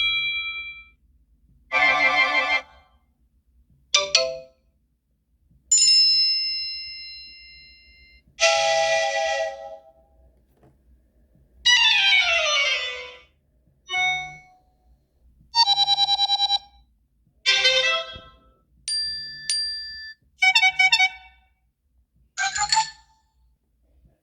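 A run of about a dozen different short iPhone alert tones played one after another, each lasting from under half a second to about two seconds, with short pauses between them; one, about twelve seconds in, sweeps downward in pitch.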